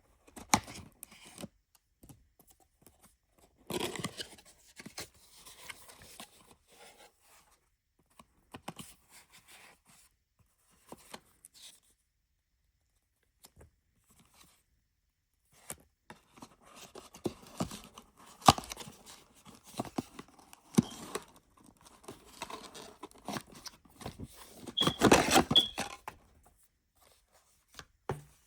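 Cardboard packaging being opened by hand: tearing, rustling and handling noises in scattered bursts with clicks, a quiet spell midway, and the longest, loudest tear near the end.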